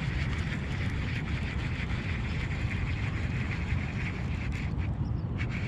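Steady low rumble of wind on the microphone with an even hiss over it and a few faint small ticks.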